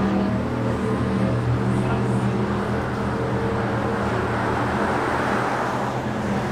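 Road traffic on a street: a steady low engine drone, with a car passing close about five seconds in.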